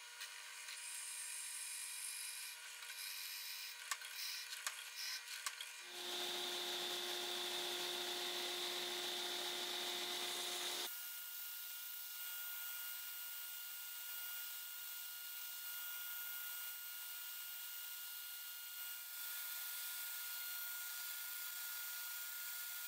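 Drill press boring the tang hole in a tiger maple knife-handle block, a quiet motor hum with a few light clicks. About six seconds in, a louder steady hum starts. Near eleven seconds this gives way to a quieter, steady belt grinder sanding the maple block to shape.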